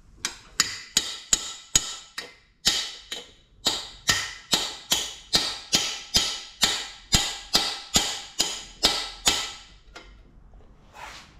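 Ball-peen hammer striking the end of a metal bar driven down the oil gallery of a cast-iron A-series engine block: a steady run of ringing metal-on-metal blows, about two and a half a second, stopping shortly before the end. The bar is knocking at an oil gallery bung that is still held solid.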